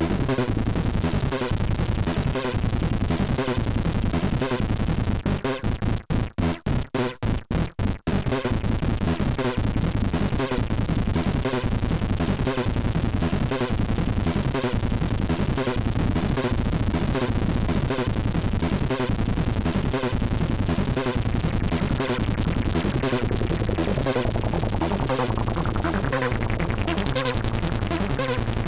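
Behringer MS-1 (MS-101) analog monosynth playing a fast, rhythmic pattern of low notes. About six seconds in, it breaks into short chopped stabs with gaps for about two seconds, then the steady pattern resumes.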